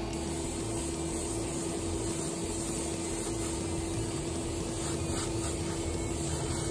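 Paasche Talon airbrush spraying paint, a steady hiss of air with a steady low hum underneath.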